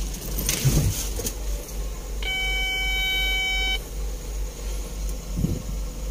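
A construction machine's cab warning buzzer gives one steady electronic beep about a second and a half long, as the ignition is switched on at start-up, after a few light clicks of the key. A low engine rumble runs underneath.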